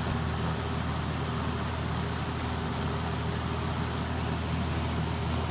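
1970s Lakewood-made 14-inch three-speed box fan running on high: a steady rush of moving air over a low motor hum.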